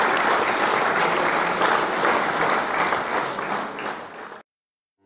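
Crowd applauding, a dense patter of many hands clapping that dies away and cuts off abruptly about four seconds in.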